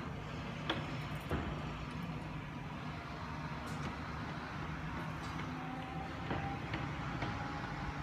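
Crane's engine running steadily as it lifts a skid steer, with a few sharp light knocks scattered through.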